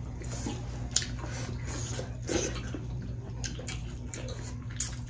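Close-up eating sounds: wet chewing and lip smacks and fingers mixing dhido and soup on a metal plate, as a run of scattered short wet clicks over a steady low hum.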